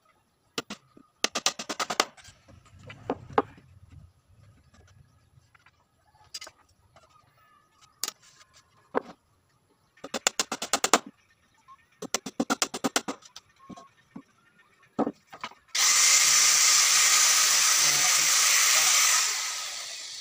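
A few short bursts of rapid clicking during woodworking on a plywood speaker box. Near the end a power tool runs loudly and steadily for about three and a half seconds, then winds down.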